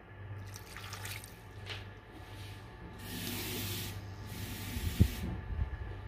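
Water pouring and splashing in several short spells, with one sharp knock about five seconds in.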